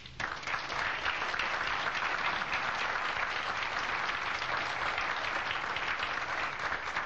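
Audience applause from a room full of people clapping, starting right after a talk ends and holding steady for several seconds before easing off near the end.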